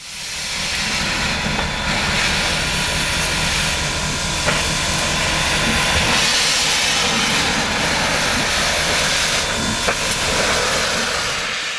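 Steam locomotive venting steam with a loud, steady hiss over a low rumble, with a few sharp clicks.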